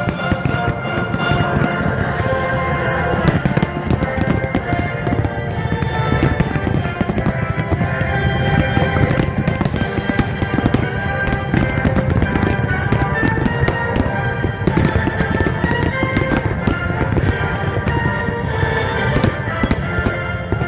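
Fireworks exploding and crackling in a dense, continuous barrage of sharp bangs, over music playing steadily throughout.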